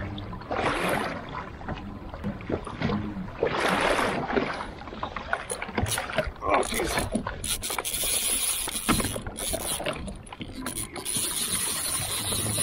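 Rapid mechanical clicking and a steady whirring whine of a fishing reel, starting about six seconds in as the bent trolling rod is taken up with a fish on. Water splashes and lapping come before it.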